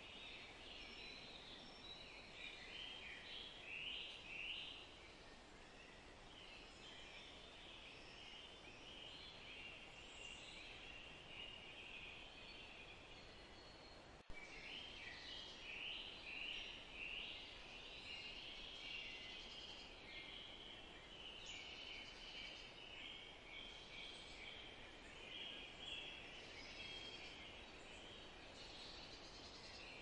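Faint chorus of many songbirds singing at once, with dense overlapping chirps over a soft background hiss. A single sharp click comes about halfway through.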